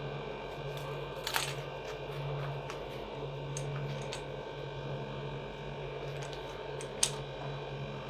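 Plastic parts of a new electric pressure washer being handled, with a few sharp clicks and light knocks, the sharpest about seven seconds in, over a steady low hum.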